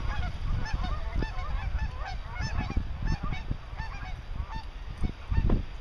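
A flock of Canada geese honking over and over as it takes off, flushed by chasing dogs; the calls thin out toward the end. A low rumble runs underneath, with a dull thump about five and a half seconds in.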